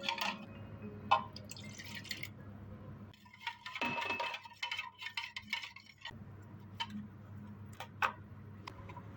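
Liquid being poured into a container, heaviest in the middle, with a few light clicks and clinks over a low steady hum.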